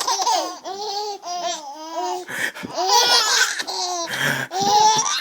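Two young children cracking up laughing, in several high-pitched bursts of laughter with short breaths between them.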